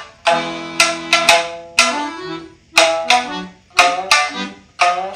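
Instrumental passage on shamisen and accordion: the shamisen is struck in sharp plucked notes that ring and fade, several a second at times, and the accordion holds low chords for about the first second.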